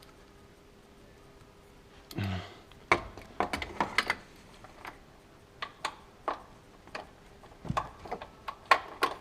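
Irregular sharp metallic clicks and taps of a ratchet and 17 mm socket being worked onto the drive-belt tensioner bolt, starting about three seconds in.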